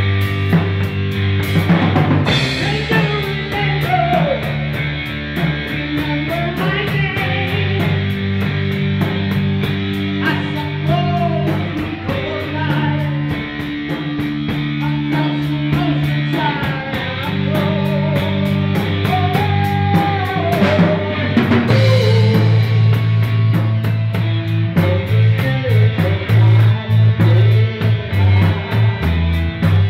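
Rock band playing live: a five-string electric bass holding low notes, an electric guitar and a drum kit with steady cymbal strokes. About two-thirds of the way through, the playing gets louder and choppier.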